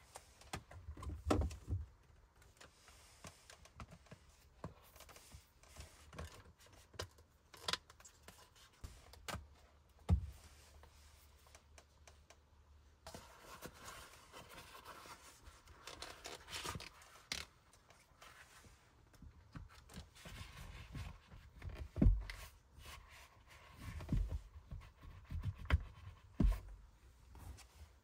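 Hands handling a gear-shift boot and its trim frame around a bare gear lever: rustling and scraping of the boot material, with scattered clicks and knocks. The loudest knocks come about ten and twenty-two seconds in.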